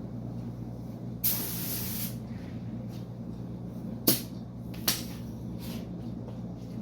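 Paint spray gun spraying primer in one hissing burst of about a second, followed by two sharp clicks, over a steady low hum.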